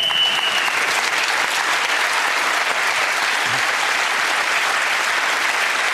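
The end-of-round whistle holds one steady high note that stops under a second in. A studio audience applauds steadily throughout.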